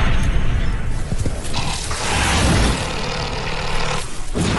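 Honey badger digging at a burrow in sandy soil, its claws scraping and scattering earth: a loud, rough scrabbling noise with a heavy low rumble that drops off briefly near the end.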